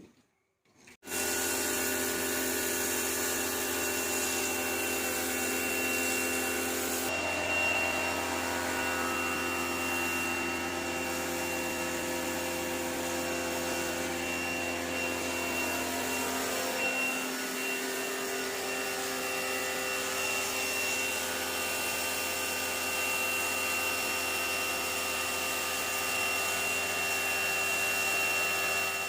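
Bosch AQT 35-12 electric pressure washer running steadily under load with a motor whine and a hiss of spray, starting abruptly about a second in; the high part of the hiss drops off a few seconds later.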